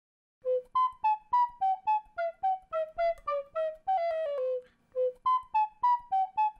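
Recorder playing a lively melody of short, separate notes, about four a second, with a quick falling run partway through and a brief pause before the tune picks up again.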